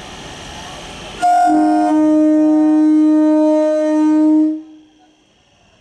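Electric train horn sounding one long blast of about three seconds, opening on a higher note and dropping to a lower one, after a second or so of steady rumbling noise.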